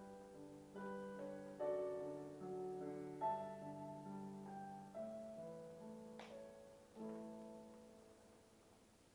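Slow, soft piano music: chords and single notes struck every second or so and left to ring and fade.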